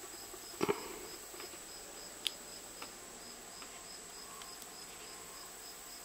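Hook pick and tension wrench working the pin stack of a Brinks marine padlock with security pins: a few faint clicks, the sharpest about two seconds in. Under them runs a steady high pulsing tone, about four pulses a second.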